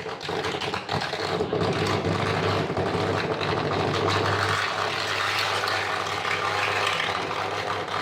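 A vehicle engine running steadily, with a constant low hum and a rattling noise.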